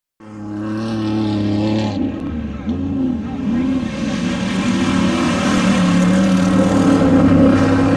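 Off-road race vehicle engine running and revving, with a few quick rises and falls in pitch early on, then holding a steadier, louder note.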